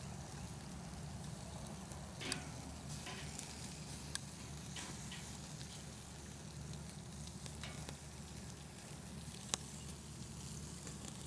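Bacon-wrapped filet mignon steaks searing directly over hot charcoal on a kettle grill grate: a steady sizzle with scattered crackles and three sharp clicks, at about two, four and nine and a half seconds in.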